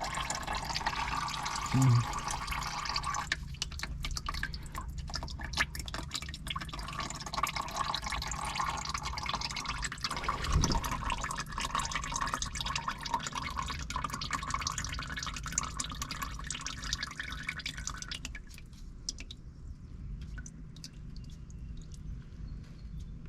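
Old engine oil running out of the 1976 Cadillac DeVille's engine and into a drain pan, a steady trickle that thins to scattered drips near the end. A short thump about two seconds in.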